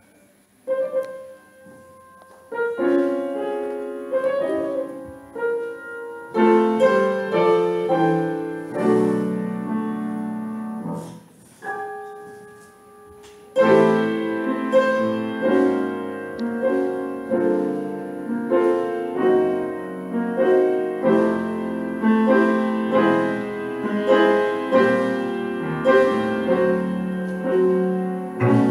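Piano playing jazz: sparse, spaced chords with pauses at first, turning into a fuller, steadily pulsed accompaniment from about fourteen seconds in.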